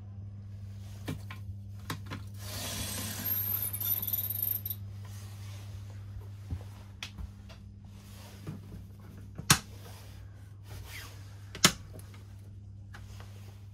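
A blackout window blind in a train sleeping-car compartment is pulled down, a rustling slide of about two seconds. Later come two sharp latch clicks, the blind catching and the wash-cabinet door opening, over a steady low hum.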